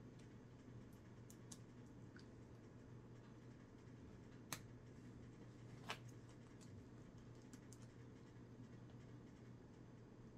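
Near silence with a low steady hum, broken by a few faint clicks of small plastic Lego pieces being handled, two of them clearer about halfway through.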